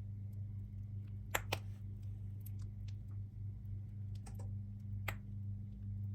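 A few light, sharp clicks from handling in the kitchen: two close together about a second and a half in, and a few more near the end, over a steady low hum.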